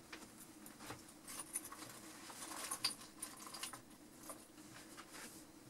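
Faint rustling and light clicks of small objects being handled, over a low steady room hum.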